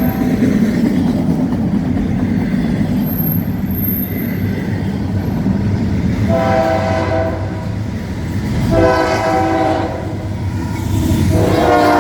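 Freight train rolling with a steady low rumble while the locomotive's multi-chime air horn sounds three blasts, the last one starting near the end and still going.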